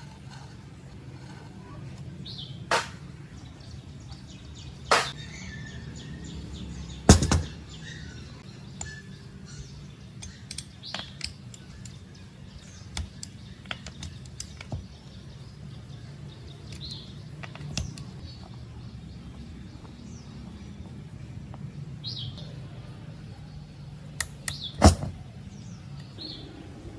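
Metal hand tool scraping and picking at a rusty old air compressor: irregular small clicks and scrapes with a few sharp metal knocks, the loudest about seven seconds in and near the end, as grime and rust are dug from the pump base and from between the cylinder head's cooling fins.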